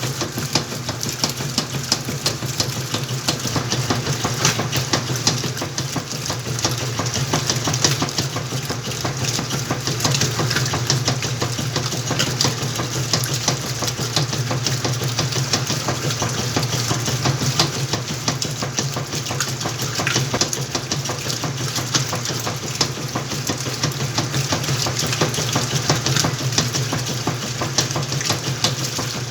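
Whirlpool washing machine running through its cycle: a steady low motor hum with a dense crackling hiss of water and clothes moving in the drum above it.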